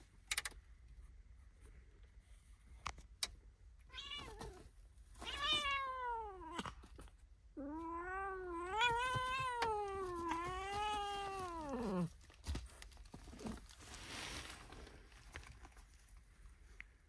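Calico cat meowing: a short meow about four seconds in, a falling meow, then one long drawn-out meow of about four seconds that wavers in pitch and drops away at the end. A few light clicks come before the calls and a short rustle follows them.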